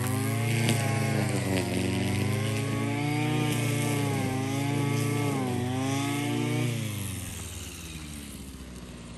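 A petrol grass strimmer's small engine running, its revs rising and falling as it cuts long grass. About seven seconds in the revs drop and it goes quieter.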